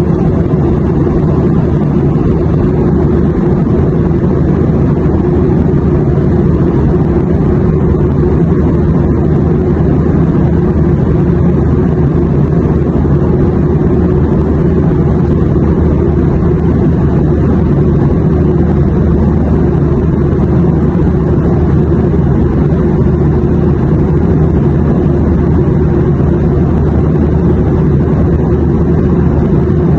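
Airliner cabin noise in flight: a loud, steady, unchanging drone of engine and rushing air, heaviest in the low end with a faint steady hum running through it.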